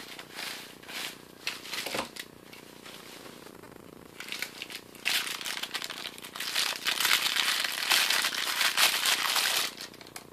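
Plastic packaging crinkling as hands unwrap a watch: scattered crackles of bubble wrap being opened, then from about five seconds in a long, dense rustle of a thin plastic sleeve being pulled off, stopping shortly before the end.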